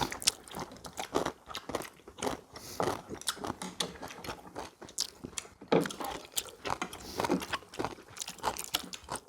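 People eating at close range: biting and chewing crunchy food, with irregular short crunches and clicks throughout.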